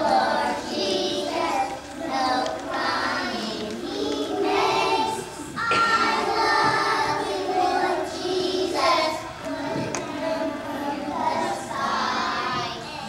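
A group of young children singing a song together, in phrases about a second long.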